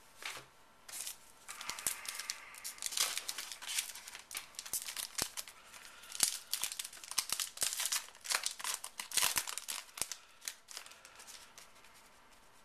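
A trading-card pack wrapper being torn open and crinkling as the stack of cards is pulled out, a dense run of crackles and rustles that dies away near the end.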